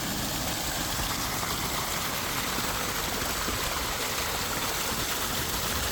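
Steady running water of a koi pond, an even rush and trickle with no pauses.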